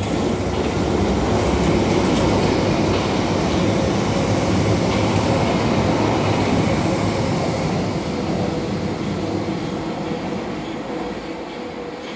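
London Underground tube train passing along the platform: a steady rumble of wheels on rail, loudest about two seconds in and slowly fading as it goes by, with a faint steady whine underneath from about halfway.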